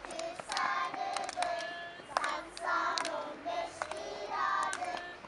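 A group of young children singing a circle-game song together, with sharp hand claps through it.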